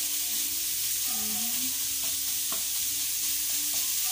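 Ground pork and onions sizzling in a hot nonstick wok as a spatula stirs and scrapes through them, with one sharp tap about two and a half seconds in.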